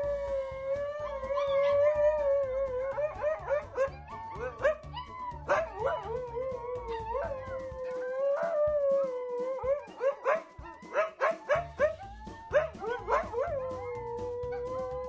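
Siberian huskies howling: an adult holds one long, steady howl while a litter of husky puppies join in with many short, wavering howls and yips, thickest in the middle stretch.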